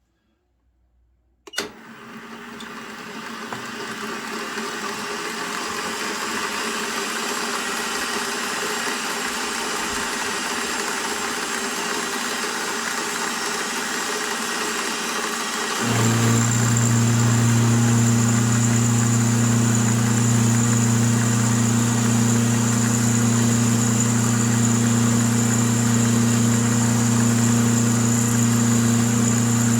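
Milling machine starting up: its motor and spindle come on about a second and a half in and spin up over a few seconds to a steady running hum. About sixteen seconds in, a louder, deeper steady hum comes in and holds.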